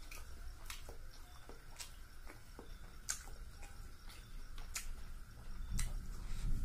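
Close-up eating sounds of fish curry and rice eaten by hand: sharp, wet mouth clicks and smacks about once a second, with soft squishing of fingers in the rice. The chewing grows louder and lower near the end.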